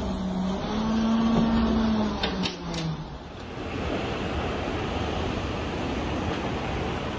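Tornado wind rushing past a window, with a wavering howling tone and a few sharp knocks of flying debris about two to three seconds in. About three seconds in the sound changes abruptly to a steady, even rushing of wind.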